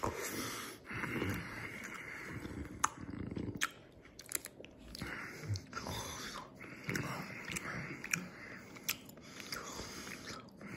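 A person chewing soft Mott's fruit gummies, with irregular mouth sounds and scattered sharp clicks throughout.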